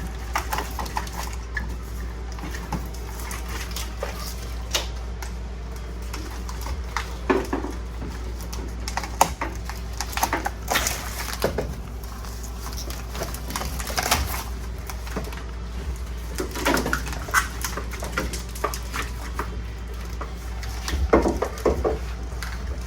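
Scattered clicks, clinks and rattles of old truck wiring and its connectors being worked loose and pulled out, over a steady low hum.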